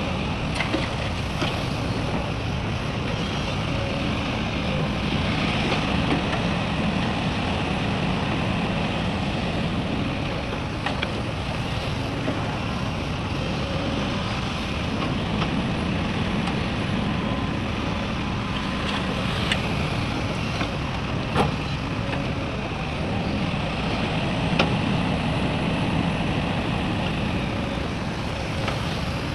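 Heavy diesel machinery running steadily, typical of an excavator loading a dump truck, with a few sharp knocks at scattered moments.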